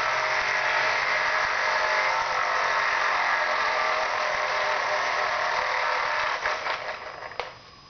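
Vintage battery-operated Vertibird tethered toy helicopter whirring steadily as it runs. About six seconds in the whir drops away, leaving a few clicks near the end.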